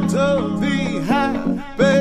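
Background music: a pop love song, a sung melody with vibrato over a sustained accompaniment.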